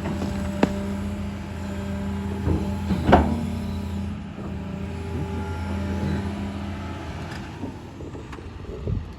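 Excavator engine running steadily, with a few sharp knocks and cracks of wood and machinery, the loudest about three seconds in.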